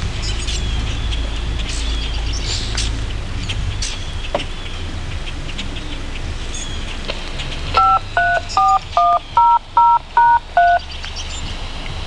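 A quick string of eight touch-tone (DTMF) beeps, each two tones sounding together, about three a second, starting a little under eight seconds in. Before them, faint bird chirps over a low steady rumble.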